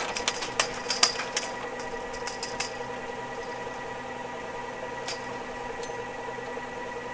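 Ski lift running: a steady machine hum from the lift's motor, with a quick run of clicks and rattles from the cable and lift hardware in the first couple of seconds and one more about five seconds in.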